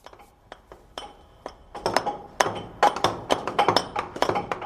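Chisels being hammered into rock by several workers: quick, irregular metallic taps and knocks. They start sparse and faint, then become dense and loud about two seconds in.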